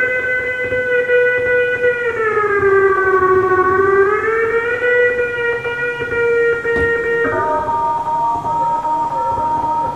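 FM-synthesised tone controlled by an accelerometer-fitted cocktail shaker tin: a buzzy electronic tone with many overtones that glides down in pitch and back up as the tin is moved, in the manner of a siren. About seven seconds in it switches to a warbling, wavering sound over a steady higher tone.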